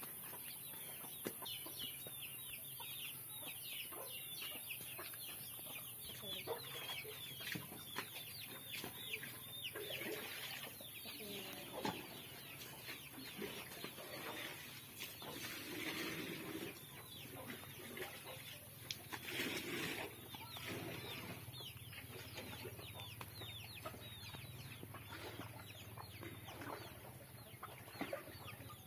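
Many birds calling, a dense run of short overlapping calls, over a steady low hum.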